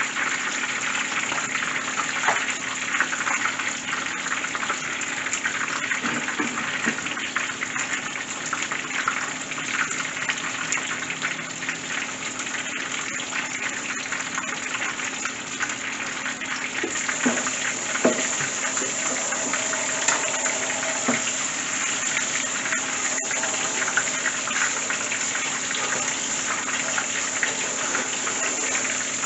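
Battered porgy deep-frying in a skillet of hot oil: steady sizzling with fine crackles, over a low steady hum.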